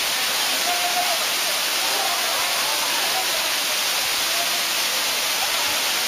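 Waterfall: a steady, unbroken rush of water falling onto rocks, with faint voices in the distance.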